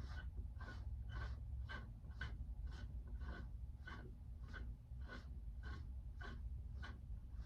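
Rhythmic hand scraping or rubbing, just under two even strokes a second, as the heater fan motor's shaft is worked in its bronze bushing, which is suspected to be worn. A low steady hum runs underneath.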